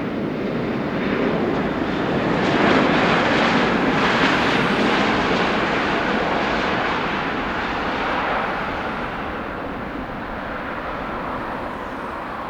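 Jet airliner's engines passing by, a steady rushing noise that is loudest about three seconds in and slowly fades toward the end.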